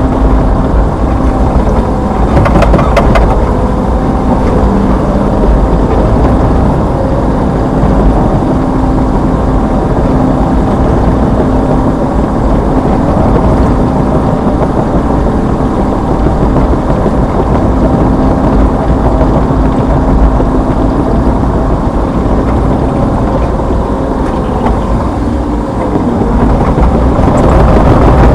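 Hitachi Zaxis 210F excavator's four-cylinder turbocharged diesel engine running steadily under work, with a brief clatter of knocks about three seconds in and the engine getting a little louder near the end.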